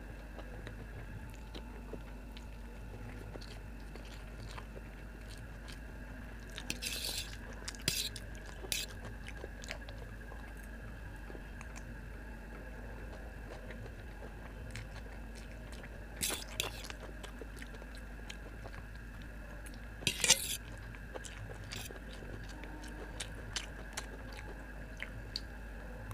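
Close-up mouth sounds of eating vegetable chow mein noodles: wet chewing with several short, loud slurps of noodles being sucked in, the loudest about 20 seconds in. A steel fork clicks lightly against a steel plate now and then, over a steady low hum.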